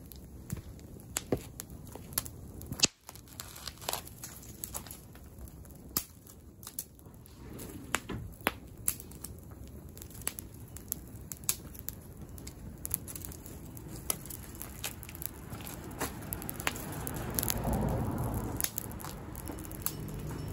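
Bonfire of dry twigs and brush burning, with sharp crackles and pops scattered throughout. A louder rushing noise builds in the last few seconds.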